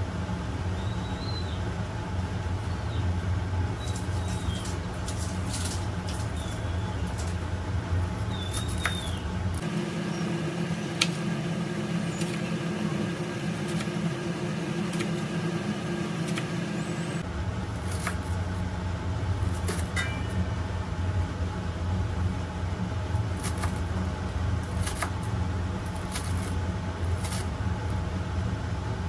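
Kitchen knife chopping fresh coriander on a wooden cutting board, a scatter of sharp taps as the blade strikes the board, over a steady low mechanical hum. A few short high chirps in the first few seconds.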